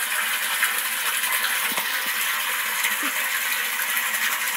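Pumped water pouring from an inlet pipe into a partly filled water tank, splashing steadily on the water surface as the tank fills.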